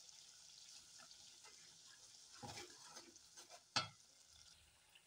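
Faint sizzling of a ground onion, ginger and garlic masala frying in oil with freshly added powdered spices, stirred with a plastic spatula that scrapes and knocks against the aluminium pot twice, the louder one about four seconds in.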